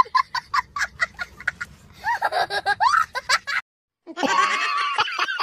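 A young child laughing hard in quick, rapid bursts, then a longer rising and falling laughing cry. After a brief silence about three and a half seconds in, more laughter starts up.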